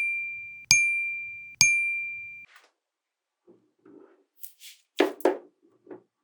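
Three bright metallic dings at an even pace, each ringing on one clear high tone for under a second before the next cuts it off. After a pause come soft clicks and then two sharper clicks, like small magnetic balls snapping together.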